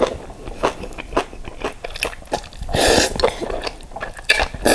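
A person eating jjajang ramen noodles: wet chewing and mouth clicks, with a loud noodle slurp about three seconds in.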